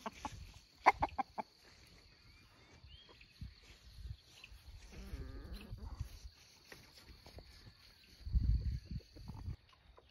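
Backyard flock of chickens clucking, with a quick run of short, sharp clucks about a second in and softer scattered calls after. A low rumble comes near the end.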